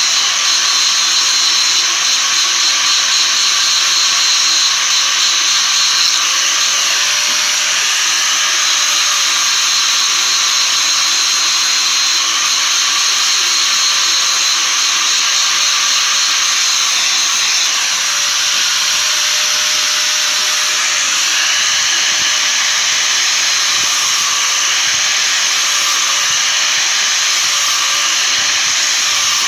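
Power grinder sharpening metal: a steady, continuous grinding hiss.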